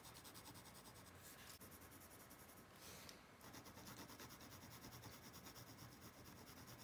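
A blue coloured pencil scratching faintly on textured paper in quick, even back-and-forth shading strokes, several a second, with a brief pause about halfway.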